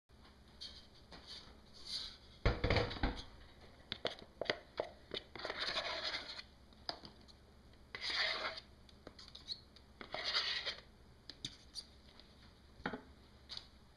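Thick red screen-printing ink being scraped out of a plastic cup onto the screen mesh: several short scraping bursts with scattered clicks, and a knock about two and a half seconds in.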